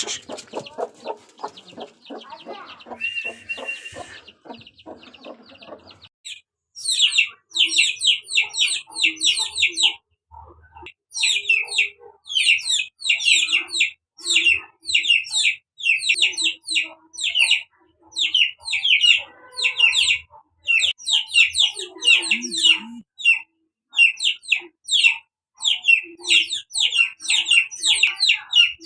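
Chickens: low, short clucks under quick series of high chirps that come in runs of about a second, one after another, from about seven seconds in. The first six seconds hold a dense rattle of rapid pulses instead.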